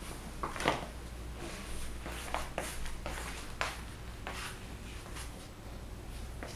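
A handful of soft, irregular taps and scuffs over a low steady room hum, from a toddler shifting about in oversized sneakers while leaning on a wooden table.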